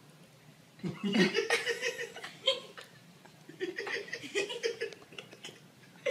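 A person laughing in two short bouts, the first about a second in, the second starting about three and a half seconds in.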